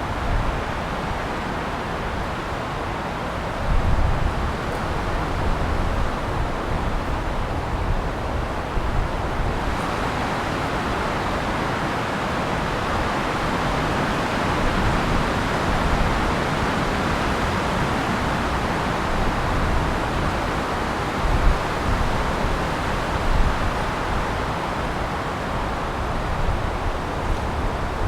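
Wind blowing through trees: a steady rushing hiss of moving foliage with uneven low gusty rumbles, the hiss growing fuller about ten seconds in.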